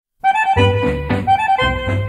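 Accordion music with a bass accompaniment beginning after a brief silence: a lively accordion melody over a steady bass beat, the opening of a new piece.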